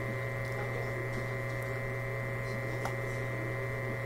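Steady electrical hum at an even level, with a faint click about three seconds in.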